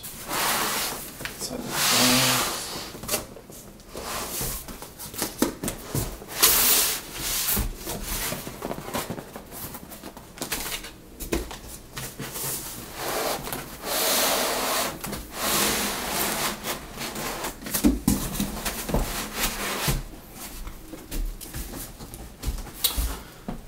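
Cardboard shipping box and foam packing blocks being handled as a 3D printer is unpacked: irregular rustling and scraping of cardboard and foam, with a few sharp knocks.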